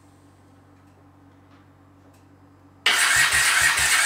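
The electric starter of a Honda CX650E's V-twin cranks the engine on a cold first start with the choke on, after a pause with only a faint steady hum. The cranking resumes suddenly about three seconds in with an even, rapid chugging, and the engine does not catch.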